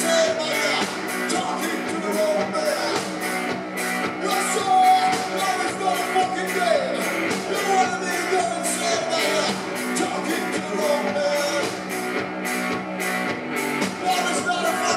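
Live rock-and-roll played by a duo: a steady beat of about three strikes a second on snare and cymbals from a standing drummer, a hollow-body electric guitar, and singing.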